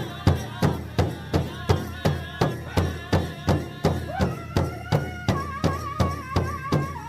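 Native American celebration music: a drum struck in a steady beat of about three strokes a second, with voices chanting long held notes that waver in pitch.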